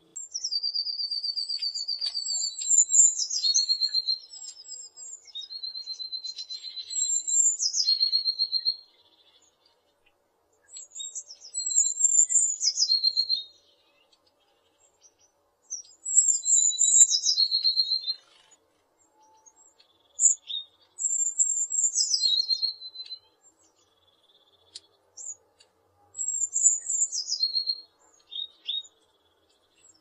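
Blue tit singing: repeated song phrases of a few high, thin notes falling into a fast, lower trill. Each phrase lasts a few seconds, with short pauses between them.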